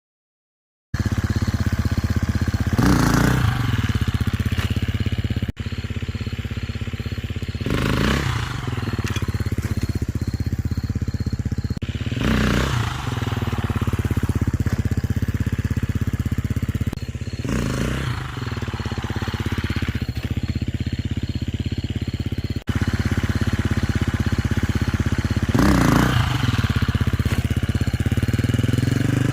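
Husqvarna FE350R dirt bike's single-cylinder four-stroke engine running, with a sharp rev that rises and falls about every four to five seconds as the rider lifts the front wheel.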